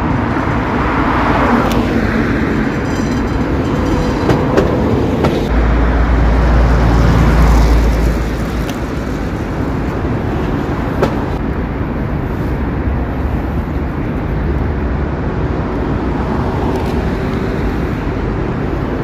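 Vintage trams rolling past along the track one after another, their wheels rumbling on the rails with a few sharp clicks. The rumble is heaviest around six to eight seconds in.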